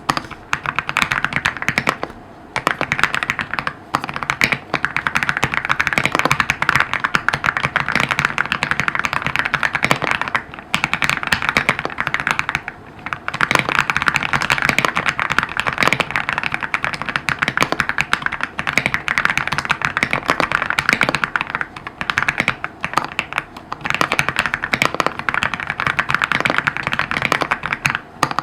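Fast, continuous typing on an EPOMAKER x AULA F65 mechanical keyboard with LEOBOG Grewood v3 switches: a dense run of key clicks with a few brief pauses.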